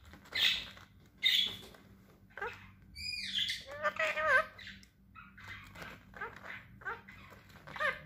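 Pet parrot calling: two harsh squawks in the first second and a half, then warbling whistled calls and a run of short rising chirps.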